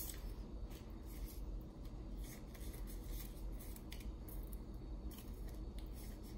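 Quiet rustling of paper and thin card, with light taps and scrapes, as the cardboard paperwork sleeve from an iPhone box is handled and its Apple sticker and SIM-tool card are slid back inside.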